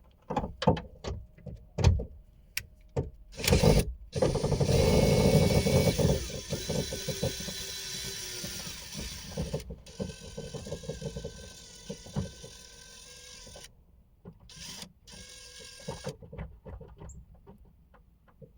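Cordless drill with a 10 mm socket adapter spinning out a trim bolt. A few clicks, then the drill runs for about ten seconds, loudest at the start and gradually trailing off, followed by a brief second run.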